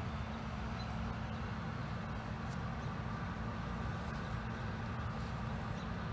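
Steady low rumble with a faint constant hum and no distinct events: outdoor background noise.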